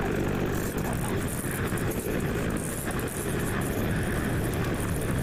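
Off-road trail motorcycle engine running steadily while being ridden, with faint rattles and clicks over it.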